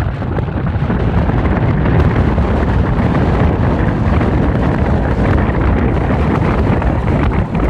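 Loud, steady wind buffeting on the microphone of a moving motorcycle, over engine and road noise.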